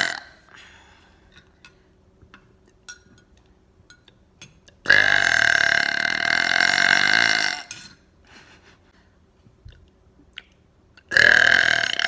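A woman burping loudly: one long burp of about two and a half seconds in the middle, and another starting about a second before the end. The tail of an earlier burp cuts off right at the start.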